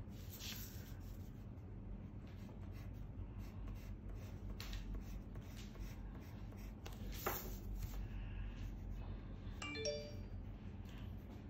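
Faint scratching of a pencil on paper as lines are drawn, in several separate strokes. About ten seconds in comes a brief, faint, chime-like tone.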